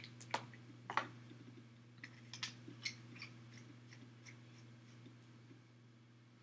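Small clicks and taps of handling a Kanger Protank clearomizer while it is filled with e-liquid. A few sharp clicks come in the first three seconds, then only faint ticks, over a steady low hum.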